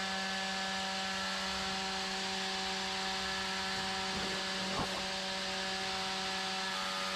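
A steady machine hum with a constant pitch and even hiss, and one faint click just under five seconds in.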